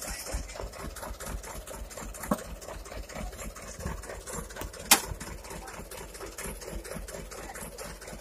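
Diesel engine of a Mitsubishi Canter dump truck idling steadily. Over it come a light knock a little after two seconds and a sharp, loud knock about five seconds in, as timber blocks are handled under the sunken rear wheel.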